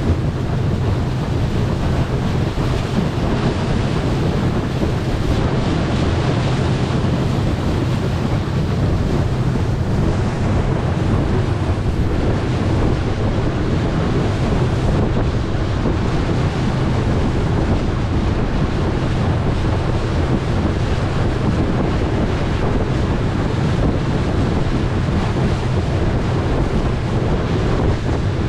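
Steady wind noise on the microphone over rushing water, with a constant low drone, from a boat under way.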